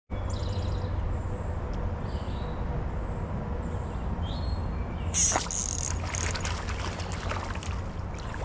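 Birds calling with short chirps over a steady low rumble. About five seconds in, a loud burst of close water splashing starts, then continues as scattered crackles and trickles.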